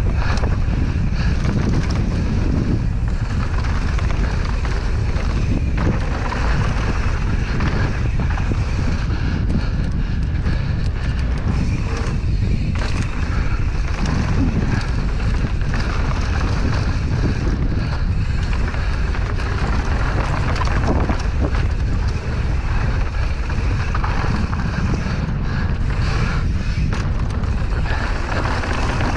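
Wind buffeting a GoPro Hero 8's microphone as a mountain bike rolls down a dry dirt trail, a steady low rumble mixed with the crunch of knobby tyres on dirt and short rattles over bumps.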